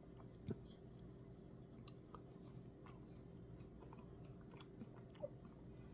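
Faint chewing with a few small mouth clicks, a person eating soft-serve ice cream with cookie pieces, over a low steady room hum.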